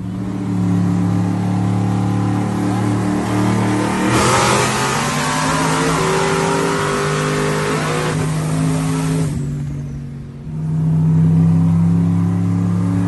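A modified pickup truck's V8 engine running at a steady drone, then going to full throttle about four seconds in, its pitch climbing under a loud rush for about four seconds. The throttle is lifted near ten seconds and the engine settles back to a steady drone.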